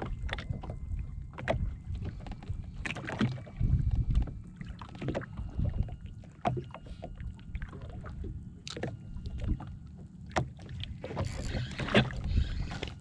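Small waves slapping and lapping irregularly against the hull of a drifting jet ski, over a steady low rumble.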